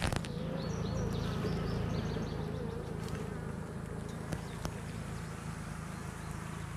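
Honey bees buzzing around an opened hive, a steady hum with one bee's wavering buzz passing close in the first few seconds. A few light clicks at the start and end.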